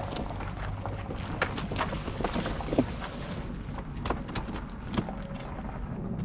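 Aircraft noise overhead, a steady rumbling drone whose upper hiss thins out about halfway through, with scattered knocks and clicks of handling mixed in.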